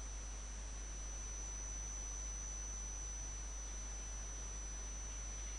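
Steady low electrical hum with a thin, constant high-pitched whine over faint hiss: the background noise of the recording setup, with no other sound.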